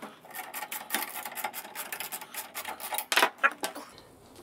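Hand work on motorcycle parts: a rapid, uneven run of small clicks and scraping, with a couple of louder clicks about three seconds in.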